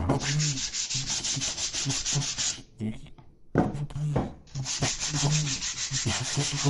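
Hand sanding of a reconstituted walnut wood veneer panel with a sanding block: rapid back-and-forth rubbing strokes in two long bouts, with a short pause about halfway through.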